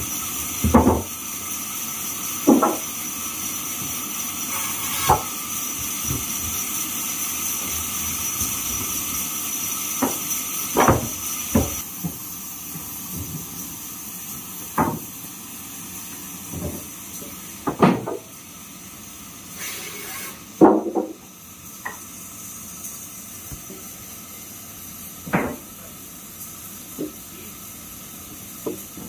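Sawn timber planks and beams being handled and set down, giving irregular hollow wooden knocks and clunks, about a dozen spread unevenly, over a steady high hiss of sawmill background noise that thins out partway through.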